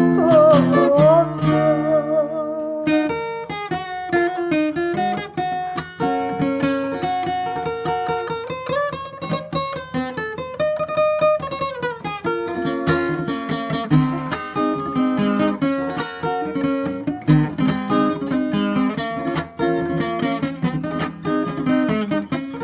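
Acoustic guitar playing an instrumental interlude between sung verses: a picked melody over strummed chords. A sung note fades out in the first second or so.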